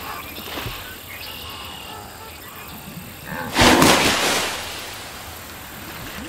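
Cartoon sound effects of a crocodile lunging out of water: a sudden loud splash about three and a half seconds in that dies away over about a second, after a few light taps before it.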